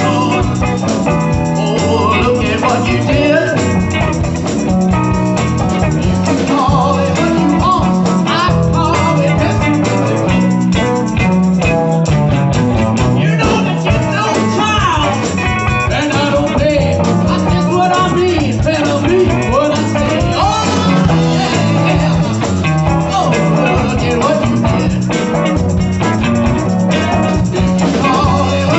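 Live band playing a blues jam at full volume: electric guitars over a drum kit and bass line, with bending lead lines.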